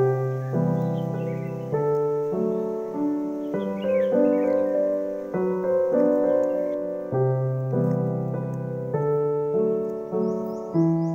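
Background piano music: chords struck roughly once a second, each ringing and fading before the next.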